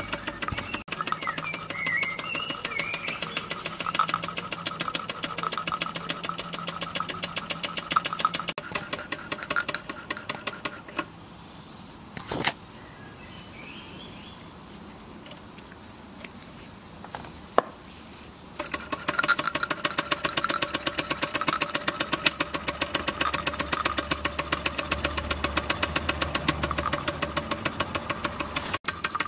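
Miniature live-steam traction engine running smoothly, its exhaust beating fast and even. The beat drops away for several seconds midway, with a couple of sharp clicks, then comes back.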